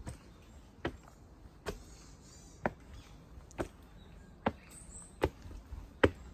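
Footsteps climbing rough stone steps, one sharp step about every second.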